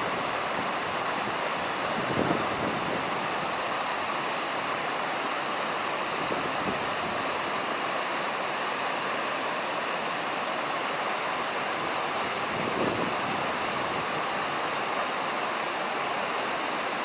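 Jaein Waterfall's falling water making a steady, even rush, with a couple of brief gusts of wind on the microphone.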